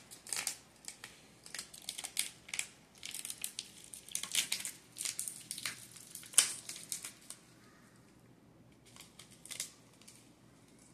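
Small clear plastic bag of sprinkles crinkling as it is handled and pulled at to get it open: a quick run of sharp crackles that thins out about seven seconds in, with a few last clicks about nine seconds in.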